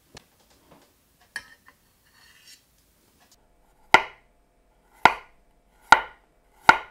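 Chef's knife slicing a radish on a wooden chopping board: four sharp knife strikes on the board, about a second apart, in the second half, after a few faint clicks.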